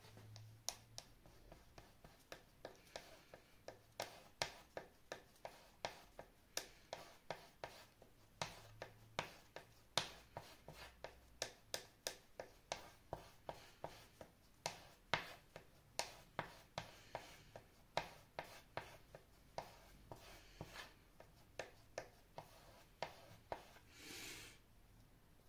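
Palette knife mixing oil paint on a smooth surface: a steady run of sharp taps and clicks, two or three a second, as the blade strikes and lifts off the paint, with one longer scrape near the end.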